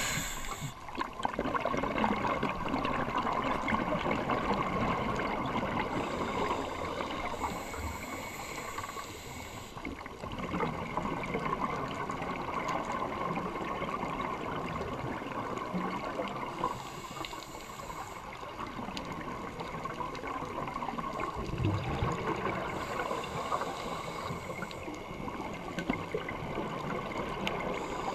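Underwater sound of a scuba diver's regulator and exhaled bubbles: a steady muffled bubbling and gurgling, with a breathing hiss that comes and goes every several seconds.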